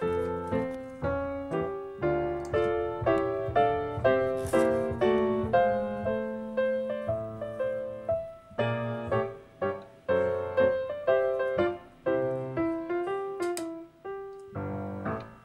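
Background piano music: a steady run of notes over chords, each note fading after it is struck.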